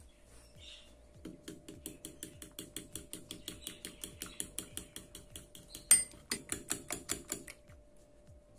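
Metal fork beating egg and corn flour in a ceramic bowl: quick, even clinks of the tines against the bowl, about five a second, with one sharper knock near the end before the beating stops.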